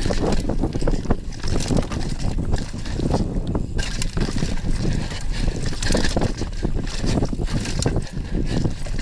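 Downhill mountain bike ridden fast down a dirt forest trail, heard from a camera mounted on the bike: tyres rolling over loose dirt and leaves, with frequent rattles and knocks over bumps and wind buffeting the microphone.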